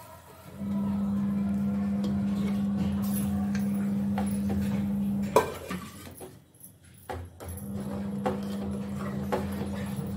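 Metal ladle scraping and clinking against a metal cooking pot as thick dal is scooped and stirred, over a steady low hum. The hum stops about five seconds in with a sharp clink and comes back about two seconds later.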